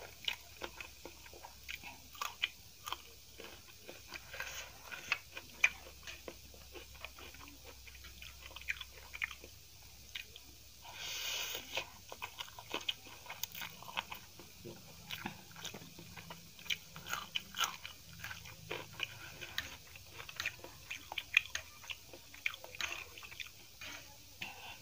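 Close-up mouth sounds of a person eating spicy Yippee instant noodles: wet chewing with many small sharp smacks and clicks, and a longer slurp about eleven seconds in.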